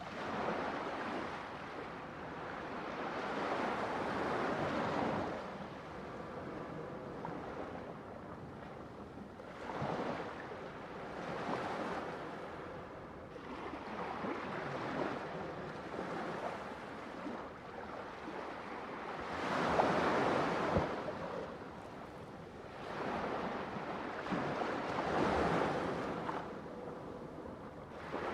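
Ocean waves breaking on a shore, one surge of surf after another every few seconds, each swelling into a rush of noise and fading back; the biggest waves break about 4 and 20 seconds in.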